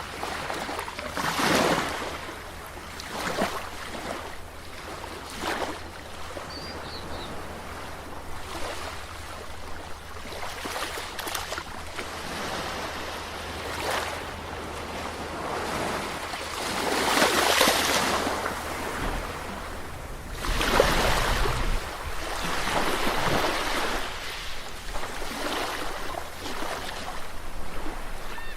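Sea waves breaking and washing on a shore in repeated swells, with a bigger surge about two-thirds of the way through and another soon after.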